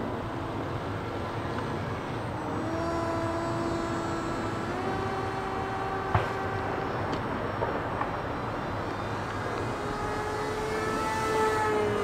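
Electric motor and propeller of a radio-controlled Arcus M sailplane running in flight, a steady whine whose pitch steps up about five seconds in and again near the end as the throttle changes. A single sharp click comes about six seconds in.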